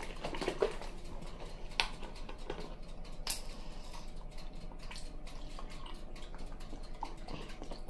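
Light clicks and handling noises as milk is poured from a carton into a small plastic measuring cup, with two sharper clicks about two and three seconds in.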